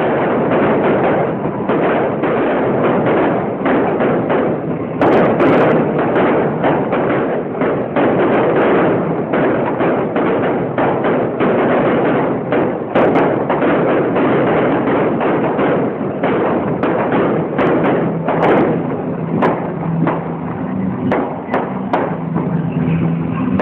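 Fireworks display: a dense, unbroken barrage of bangs and crackling, many reports a second.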